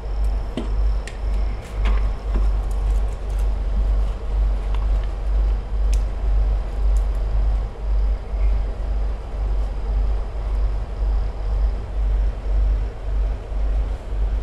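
Steady low rumble whose level keeps wavering, with a few light clicks of handling in the first few seconds.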